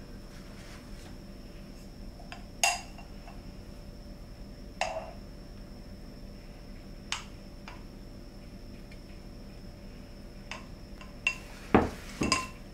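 Scattered clinks of a metal spoon against a glass measuring jug and a ceramic bowl as thick batter is poured and scraped out. Near the end comes a louder pair of knocks with a short clatter.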